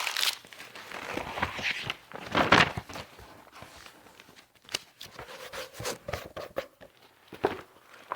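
Sheets of paper being handled: irregular rustling and crinkling, loudest about two and a half seconds in, then softer scattered crackles.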